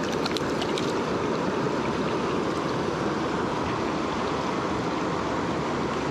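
Steady rush of fast-flowing river water through a shallow riffle.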